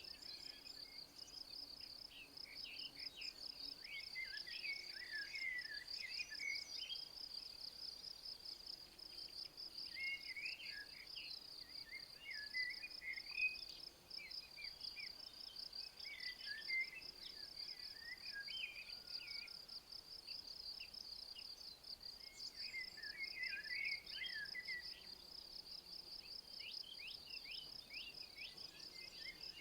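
Continuous fast-pulsing, high insect trill, as of crickets or bush-crickets, with short bursts of twittering songbird song breaking in every few seconds.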